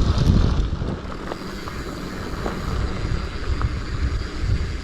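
Mountain bike riding over a dirt trail: a steady low rumble of tyres and wind buffeting the microphone, with a few faint ticks and rattles, louder in the first second.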